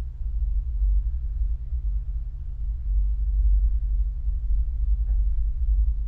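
Steady deep rumble with no other clear sound.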